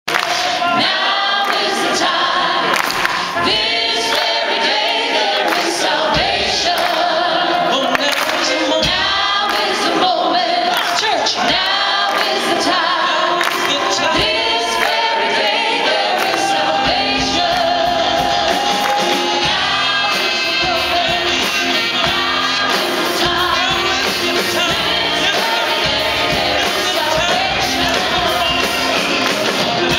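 Live church choir of men and women singing liturgical music at microphones with instrumental accompaniment, amplified through PA speakers.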